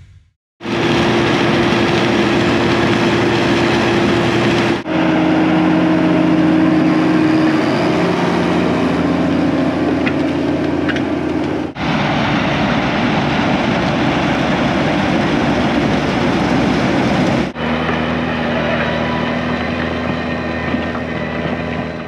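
Claas Dominator 78 combine harvester running steadily as it harvests sunflowers, in several shots joined with abrupt cuts at about 5, 12 and 17 seconds. The last shot holds a tractor's engine running.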